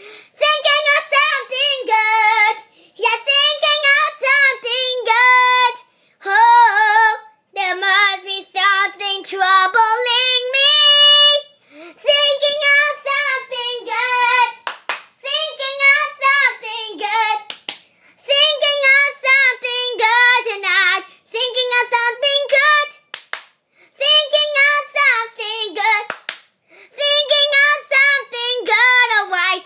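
A young girl singing on her own in a high voice with a strong, wavering vibrato, in phrases broken by short pauses. A few brief sharp knocks fall in between.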